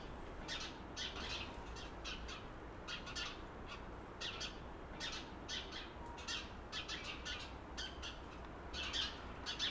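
Songbirds chirping outdoors: short, high calls about twice a second, some in quick little clusters, over a faint low background rumble.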